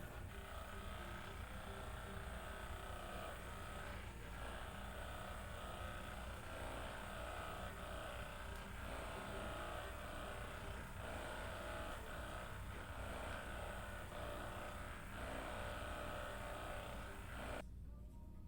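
Handheld electric vibration massager running steadily against the patient's muscles, with a constant motor hum that cuts off suddenly near the end.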